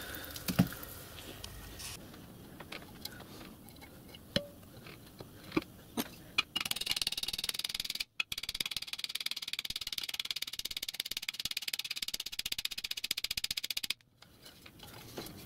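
Small hammer tapping steel rivets over a dolly held in a bench vise, riveting the ring onto a miniature locomotive's steel smokebox. The sound is sped up fourfold, so the blows come as a fast, even run of light metallic clicks, starting about six seconds in and lasting several seconds. Before that there are a few scattered clinks of metal parts being handled.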